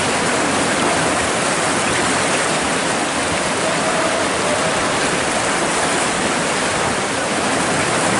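Fast-flowing river water rushing steadily past a stone-lined bank.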